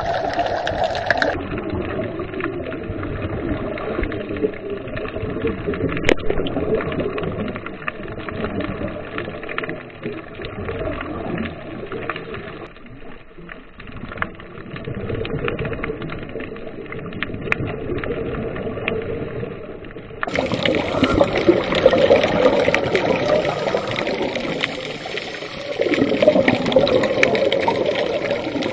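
Underwater sound around scuba divers: a steady muffled rush of water with bubbling from the divers' exhaled air. It turns fuller and brighter about two-thirds of the way through.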